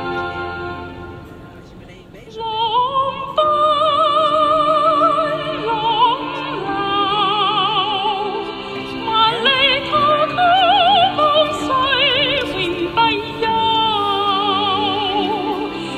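Background music: operatic singing with heavy vibrato over orchestral accompaniment. It comes in about two and a half seconds in, after the previous piece fades out.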